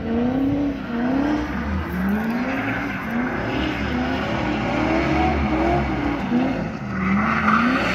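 Drift cars on track, one of them a BMW E36 with an M54B30 straight-six. The engines rev up and down again and again, the pitch rising and falling about once a second as the throttle is worked through the slides, and tyre screech builds near the end.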